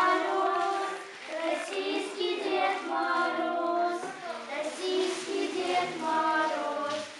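A small group of children singing together from songbooks, in phrases with short breaks between them.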